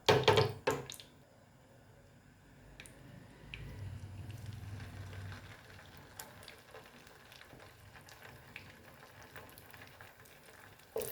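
A few sharp knocks of a pan or utensil, then oil heating in a pan with faint, scattered crackles, and a louder sizzle starting just before the end as frying begins.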